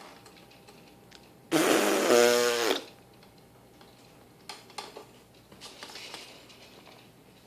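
Baby blowing a raspberry, a fart-like buzz of the lips about a second long that turns to a pitched buzz toward its end, shortly after the start. A few faint, short softer sounds follow later.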